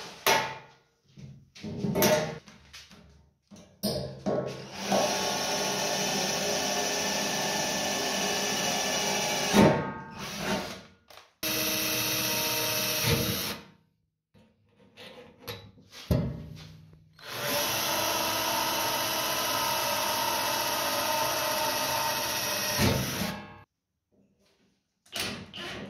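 Power drill running in three long, steady runs into sheet metal, drilling pilot holes and driving screws. Short knocks and handling clatter come between the runs.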